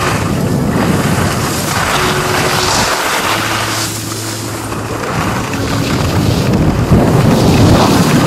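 Wind rushing over the microphone of a camera carried by a moving skier, mixed with the hiss and scrape of skis sliding on snow.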